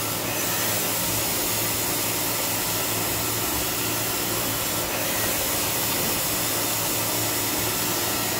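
A 700 mm band saw cutting machine for toilet tissue logs running with a steady motor whir and hum, while a paper log feeds along its infeed.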